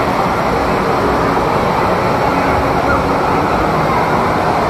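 Steady, loud rush of water with a crowd's voices mixed in.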